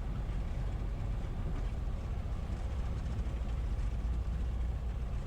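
Piper Cherokee's piston engine idling while the plane taxis, a steady low rumble.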